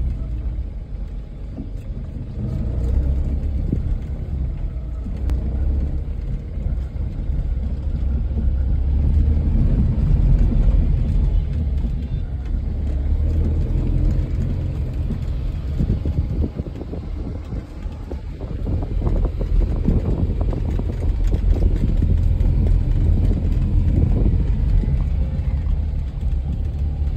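Steady low rumble of engine and road noise inside a moving vehicle's cabin while it is driven, easing briefly about two-thirds of the way through.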